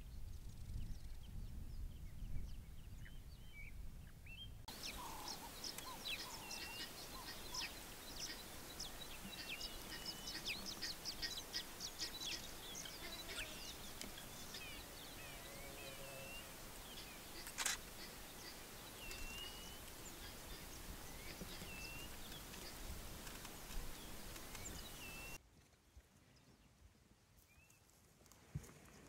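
Wild birds calling with short curling chirps every second or two. Under them is a low rumble for the first few seconds, then a steady hiss full of small ticks that cuts off abruptly near the end. There is one sharp click a little past halfway.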